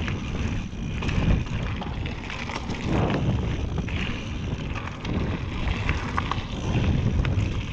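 Wind noise on an action camera's microphone while a mountain bike is ridden along a forest singletrack. The tyres rumble over the trail, with scattered clicks and rattles from the bike over bumps.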